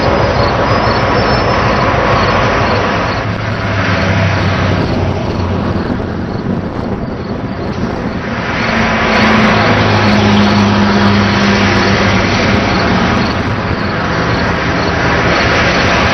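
Railroad work train rolling along the track: a loud, steady rumble of wheels and rail noise, with a diesel locomotive's low drone coming up twice.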